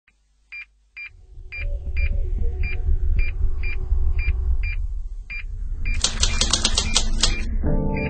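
Opening music: short clicks ticking about twice a second over a deep bass, a rapid run of clicks about six seconds in, then a sustained chord near the end.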